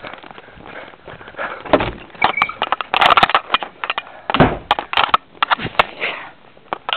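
Handling noise from a handheld camera jostled against clothing: irregular rustling, rubbing and crackling with sharp clicks and a few louder bumps, the heaviest about two seconds and four and a half seconds in.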